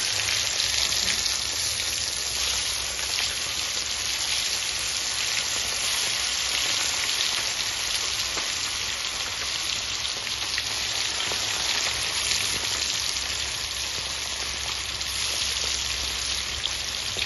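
Pieces of skinned tilapia deep-frying in hot oil in a wok: a steady sizzle with fine crackling pops.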